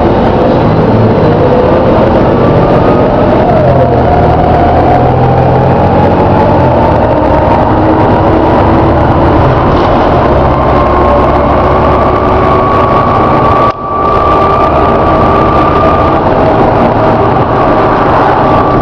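Volvo B7TL double-decker bus running under way, its engine rumbling under a loud groaning whine from the drivetrain that rises slowly in pitch as the bus gathers speed. The sound breaks off for a moment about fourteen seconds in, then carries on.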